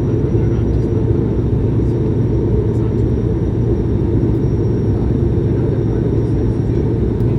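Steady, loud engine and airflow drone inside the cabin of an Airbus A220-100 climbing under power, with its Pratt & Whitney PW1500G geared turbofans. A faint steady whine sits above the low rumble.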